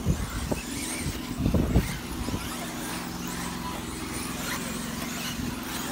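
Radio-controlled racing cars running on the track, a faint high motor whine rising and falling over a steady low hum. There are a few loud low thumps in the first two seconds.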